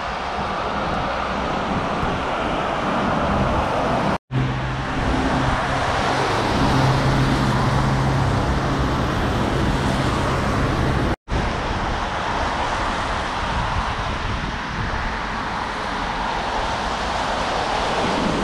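Road traffic on a wet street: a steady hiss of tyres on wet tarmac with engines running, and a low engine hum from one vehicle standing out from about four to eleven seconds in. The sound drops out for an instant twice.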